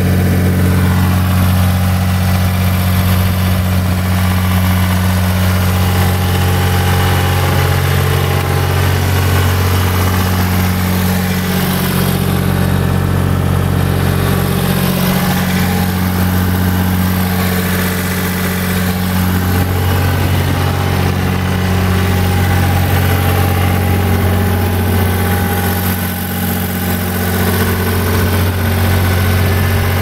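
A Gehl SL4640 skid steer's 62 hp Deutz three-cylinder turbo diesel idling steadily.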